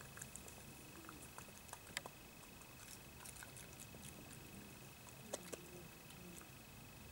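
Faint, irregular crunching and clicking of a European badger eating from a dish of food, with a sharper click about two seconds in and another past five seconds.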